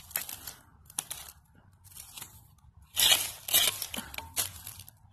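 Hand digging in loose dump soil full of broken glass and cinders: irregular crunching and scraping as a glass bottle is handled and worked free, with a louder burst of crunching about three seconds in.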